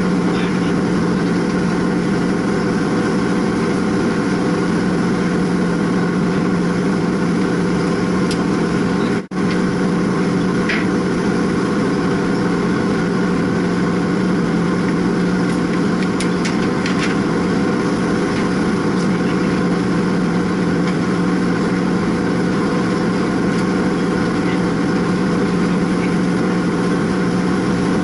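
Steady, loud drone of running machinery in a mechanical equipment room, with a strong low hum. It drops out for a split second about nine seconds in, and a few faint metallic ticks sound around the middle.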